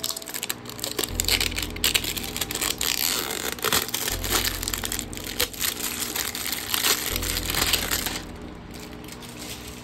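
Clear plastic wrapping crinkling and crackling as it is peeled off a plastic bottle by hand, a dense run of rapid crackles that stops about eight seconds in. Soft background music plays beneath.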